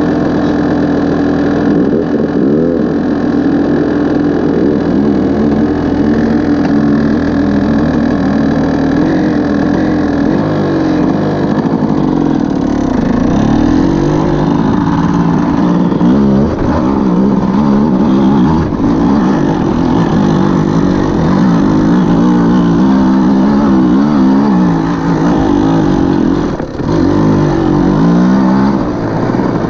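Enduro dirt bike engine idling steadily, then from about ten seconds in revving up and down repeatedly as the bike rides along a rough dirt trail.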